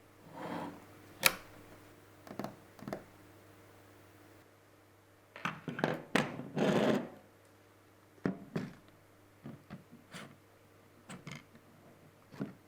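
Camera rig parts and accessories being handled and fitted: scattered clicks and knocks with short stretches of scraping, and one sharp click about a second in.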